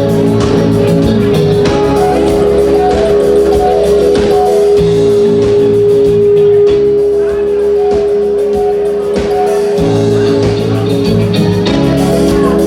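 Live band playing soft rock at full volume, with a steady beat and one long held note over it that stops about ten seconds in.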